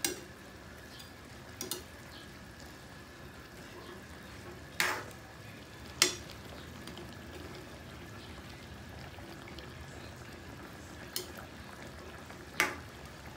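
Chicken wings simmering in sauce in an aluminium wok, a steady low sizzle, with a metal spoon clinking against the pan a handful of times as the wings are turned, the sharpest knocks about five and six seconds in.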